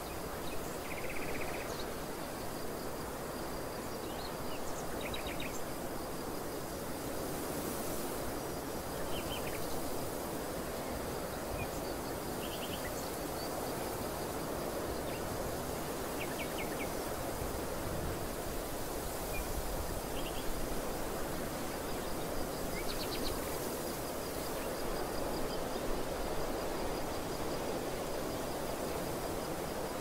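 Open-air field ambience: a steady rushing noise, with short, high bird chirps and little trills breaking in every few seconds.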